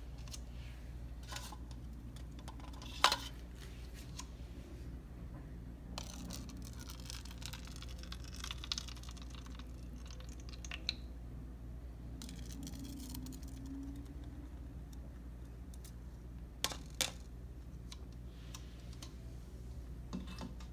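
Scattered light clicks and taps of plastic cups and a small bowl being handled on a stone countertop while thick chamoy sauce is poured into the cups, over a low steady hum. The sharpest click comes about three seconds in, and two more follow close together near the end.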